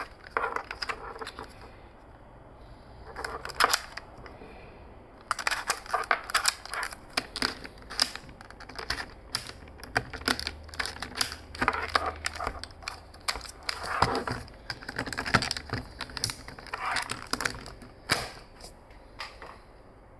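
Handling noise of a Sony ILCE-QX1 lens-style camera and its ADP-FSK1 articulating mount: repeated hard clicks and clacks of plastic and metal parts being fitted, turned and locked by hand, with a quieter pause about two to five seconds in.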